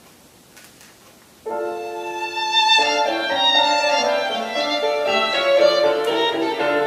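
Violin-led instrumental music played through distributed-mode (DML) flat-panel speakers driven by Dayton Audio 25 mm exciters together with tower speakers, picked up by a room microphone. It comes in about one and a half seconds in after a brief hush and fills out a second later.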